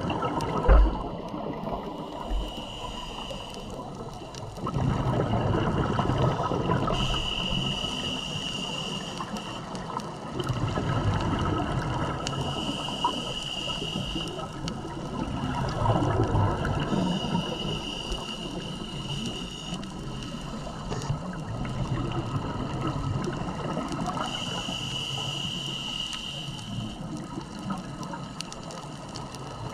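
Scuba diver breathing through a regulator underwater: five breaths, each a hissing inhale followed by a low burst of exhaust bubbles, about every five seconds. A single sharp knock about a second in.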